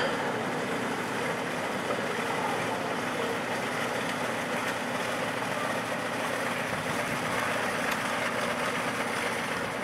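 Rio Grande Southern Galloping Goose railcar's engine idling steadily while the car is turned on a turntable.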